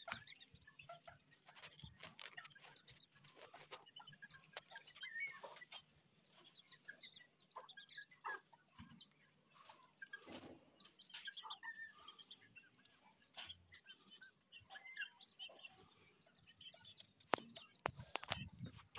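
Aseel chickens clucking and chirping in a wire-mesh coop, with many short, high chirps throughout. Scattered sharp knocks are heard, with a few louder ones near the end.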